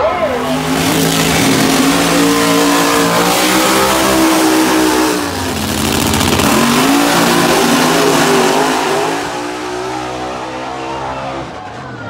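Drag race car engines running at high revs, a loud engine sound whose tones climb and waver. The sound dips briefly about five seconds in and eases off over the last few seconds.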